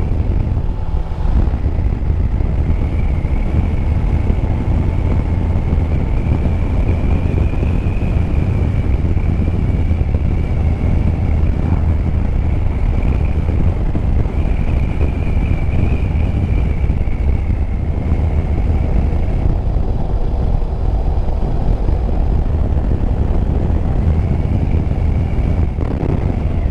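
Yamaha Tracer 9 GT motorcycle riding at a steady road speed: a continuous heavy rush of engine and wind noise, with a faint high whine that wavers slightly and drops out now and then.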